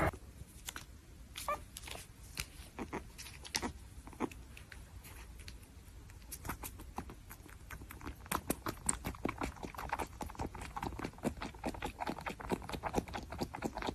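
Kitten sucking milk from a feeding bottle: a run of faint wet clicks, sparse at first and then quicker and more regular, about four a second, in the second half.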